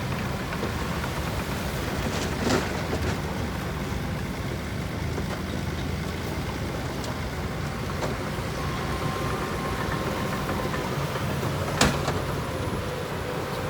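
Heavy diesel engine of earthmoving machinery running steadily with a low rumble, with a light knock about two and a half seconds in and a sharp, loud knock near the end.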